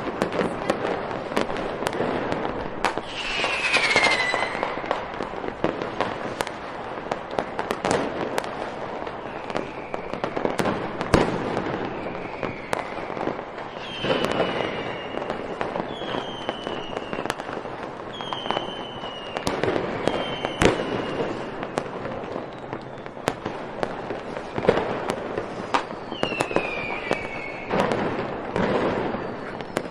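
Fireworks going off: a steady string of sharp bangs and crackles, with several whistling rockets whose whistles fall in pitch, most of them in the middle of the stretch.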